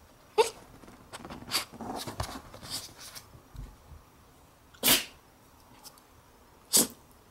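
Jack Russell terrier sneezing: two loud, short sneezes, about five and seven seconds in. Before them come a brief rising squeak near the start and a few softer short sounds.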